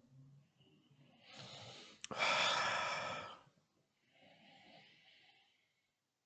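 A man breathing in and out through his nose while smelling perfume on his skin: three breaths, the longest and loudest about two seconds in, the last one faint.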